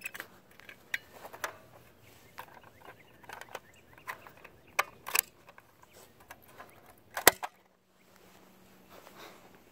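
Fire alarm pull stations being pulled one after another: a run of sharp clicks and snaps from the handles and latches, the loudest about five and seven seconds in.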